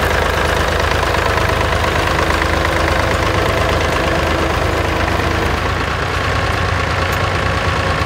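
David Brown Selectamatic 780 tractor engine running steadily as it pulls a plough.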